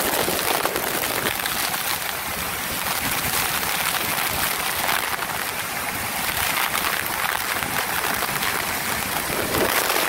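Steady, loud rush of a waterfall and the river below it in flood, carrying a very large volume of water.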